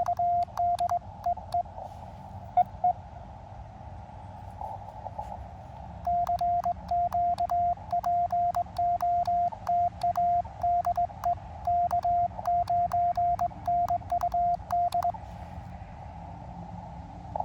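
Morse code sent on a cootie (sideswiper) key, heard as the Elecraft KX2's single steady sidetone keyed on and off, with a small click as each element starts. A short run ends about a second in and a longer one runs from about six seconds to fifteen; in the gaps only the receiver's band hiss is heard.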